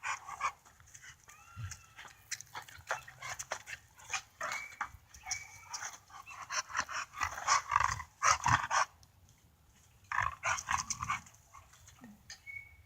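Bully-breed dogs whining in a few short, high whimpers among a run of short scuffling and rustling noises.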